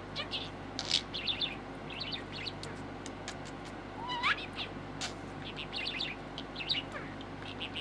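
Pet budgerigar chattering and warbling in quick, short chirps at its toy ball, with a few sharp clicks and one rising whistle about halfway through.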